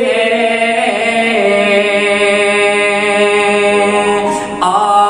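A man's voice singing an Urdu naat, drawing out one long melismatic note that drops to a lower pitch about a second in and is held for several seconds; a new sung phrase begins near the end.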